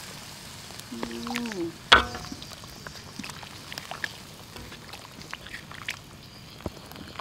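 Sauce simmering in a wok around a whole fish, with faint scattered crackling and bubbling. There is one sharp knock just before two seconds in, the loudest sound, which fits a utensil striking the wok, and a brief voice shortly before it.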